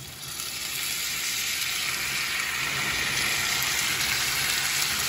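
Tomato sauce hitting browned ground beef in a hot frying pan, sizzling. The sizzle swells during the first second as the sauce goes in, then holds steady.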